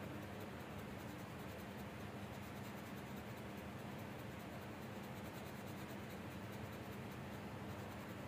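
Colored pencil scratching back and forth on paper in quick, repeated shading strokes, over a faint steady hum.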